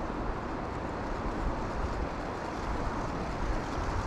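Steady rushing of a fast-flowing creek, with wind buffeting the microphone in low rumbles.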